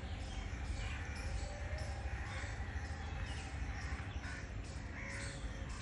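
Birds calling a few short times over a steady low rumble.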